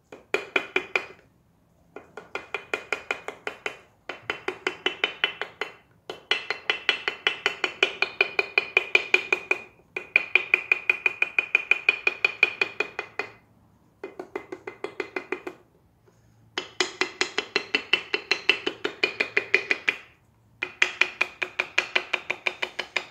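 Light hammer taps in quick, even runs of a few seconds with short pauses between, each tap ringing briefly, as gasket sheet is tapped against the engine part to cut out a homemade head gasket.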